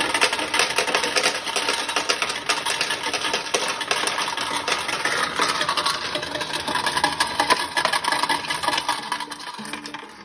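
Fruit machine's coin hopper paying out a win: a rapid, steady clatter of coins dropping into the payout tray, stopping about nine seconds in.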